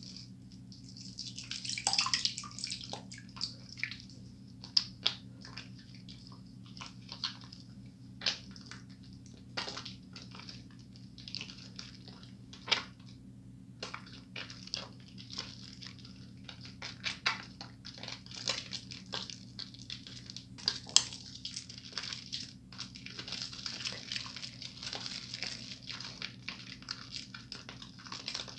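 Wet, soapy hands rubbing and squeezing a bar of Irish Spring Moisture Blast soap to build a lather: irregular squelching, squishing and small wet clicks, with a steady low hum underneath.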